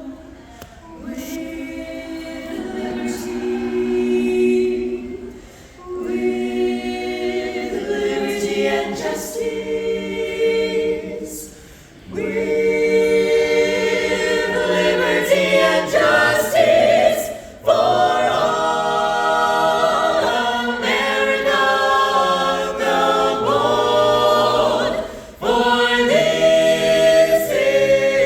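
A cappella vocal ensemble singing in close harmony with no instruments, held chords in phrases broken by short pauses for breath. It starts softer and grows fuller from about twelve seconds in.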